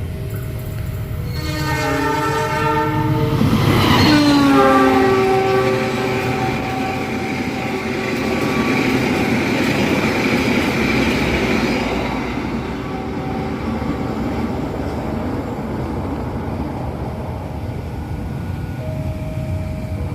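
Passing express passenger train: the diesel locomotive's horn sounds for a few seconds and drops in pitch as it goes by, then the carriages rumble and clatter over the rails and fade away.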